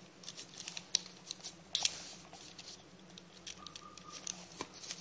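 Utility knife blade cutting and scoring thin foam board, with faint scattered crackles and clicks as the foam is cut and pieces are popped free; a couple of sharper clicks stand out about two seconds in and near the end.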